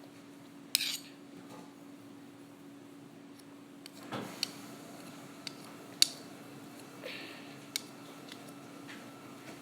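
A utensil clinking and scraping against a dish, a few separate sharp clinks with the loudest about six seconds in, over a faint steady hum.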